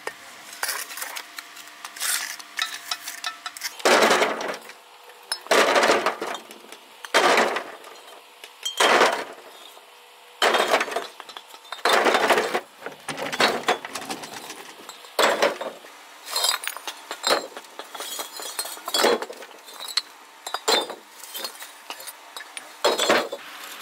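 Repeated scraping, clinking strokes of stone or gravel being worked with a tool, one stroke every one to two seconds at an uneven pace.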